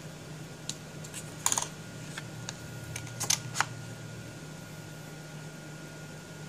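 Light clicks and taps of stamping tools and cardstock being handled on a work mat, with a sharper cluster about a second and a half in and a few more around three seconds, over a steady low hum.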